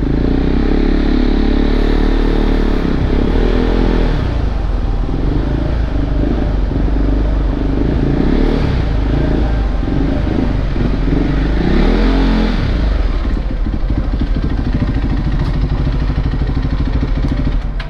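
Motorcycle engine running under way, its pitch rising and falling with the throttle near the start and again about twelve seconds in, over a steady rumble with some clatter.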